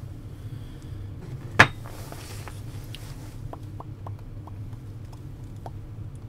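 A computer mouse button clicks once, sharply, about a second and a half in, followed a couple of seconds later by several faint ticks, over a steady low hum.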